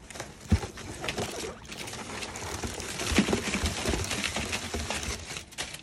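Packing paper rustling and crinkling as wads of it are pulled out of a cardboard shipping box, with a sharp knock about half a second in.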